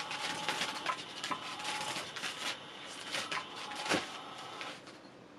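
Catch Me If You Can 2 electric cat toy running, its wand scratching and rattling around under the fabric cover with a faint motor whir. A sharper click about four seconds in as a cat paws at the toy, then the rattling drops away shortly before the end.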